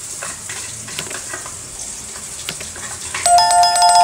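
Tomato, onion and egg omelette mixture sizzling in a frying pan, with a spoon clicking and scraping against the pan. About three seconds in, an electronic doorbell chime rings loudly over the frying, announcing someone at the door.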